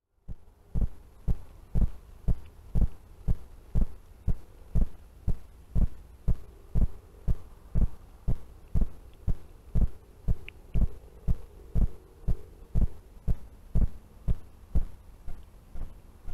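Short low thumps repeating evenly, about two a second, with a faint steady hum underneath.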